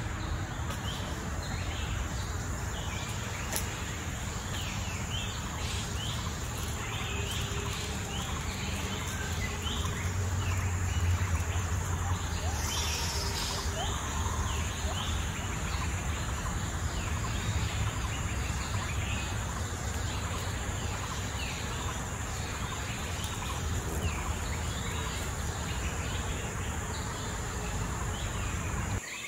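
Outdoor ambience: many small birds chirping in short, falling notes, over a steady high insect buzz and a low background rumble that swells about ten to twelve seconds in.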